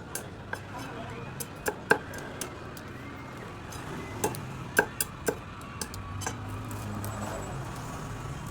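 Cleaver chopping crabs on a cutting board: sharp, irregularly spaced chops, with a few louder strikes around two seconds in and again about five seconds in.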